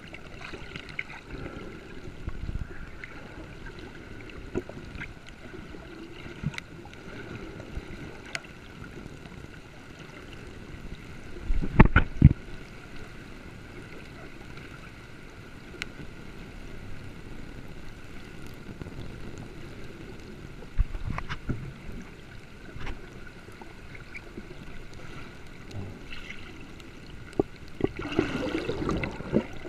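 Water sloshing and gurgling around the microphone, with scattered clicks and a faint steady high hum. A loud knock comes about twelve seconds in, and smaller knocks follow later.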